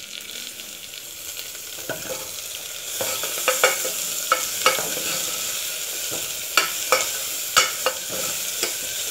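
Crushed garlic, onions and curry leaves sizzling in hot oil in a metal pot while a metal spoon stirs them, clinking and scraping against the pot. The sizzle grows louder about three seconds in as the stirring starts, with the spoon's clinks scattered through the rest.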